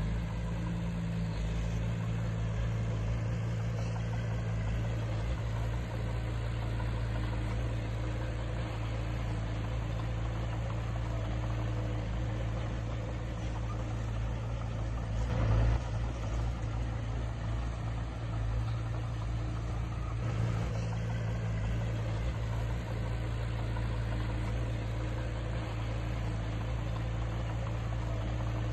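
Heavy diesel engine of earthmoving equipment running steadily at an even speed, with one brief louder thump about halfway through.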